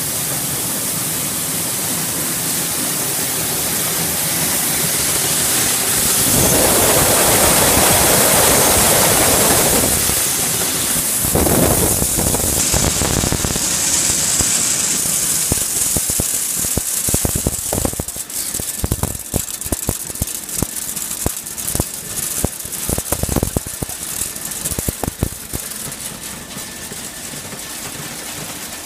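Red bean colour sorter running with a steady hiss while sorted red beans pour from its outlet chute into a plastic-lined sack, a rattling rush that swells for a few seconds about a quarter of the way in. In the second half, irregular knocks and plastic rustling come as the sack is handled at the chute.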